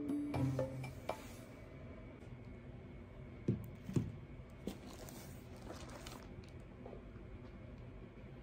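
A small potted plant and other household items set down on a wooden coffee table: three light knocks in quick succession around the middle, with soft handling sounds between.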